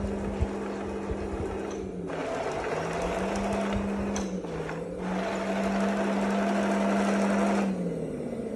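1/16-scale RC Maus tank driving and turning on a hard floor: its electric drive motors and gearboxes whir over a steady hum. The whirring stops briefly about four seconds in and cuts off near the end, and each time the hum dips in pitch.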